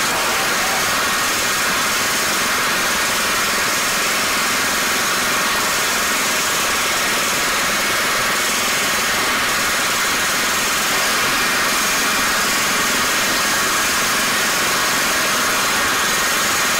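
Pneumatic riveting hammer driving a rivet on a steel locomotive boiler seam, hammering without a break and forming the rivet's domed head. Loud and steady, a dense metallic rattle.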